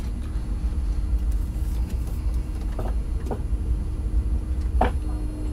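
Steady low rumble in the cockpit of an Airbus A330 taxiing after landing, with a few short faint blips about three and five seconds in.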